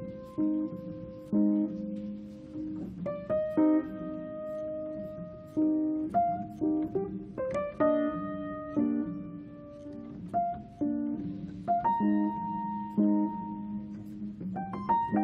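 Background piano music: a slow, gentle melody of single notes and soft chords, each note struck and left to ring.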